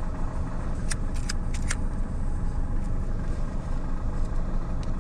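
Fiat Panda 4x4's engine running at low revs, a steady low rumble heard from inside the cabin, with a few sharp clicks about a second in and again near the end.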